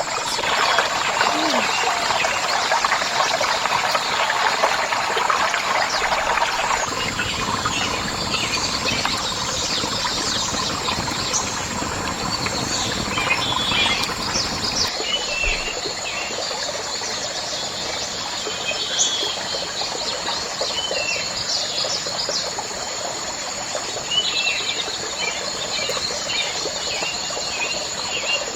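Tropical rainforest ambience: a steady high-pitched insect buzz with scattered short bird chirps over a steady hiss.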